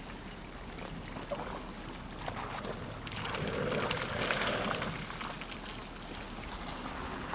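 African elephant bulls drinking at the water's edge: water splashing and pouring, louder for a couple of seconds from about three seconds in.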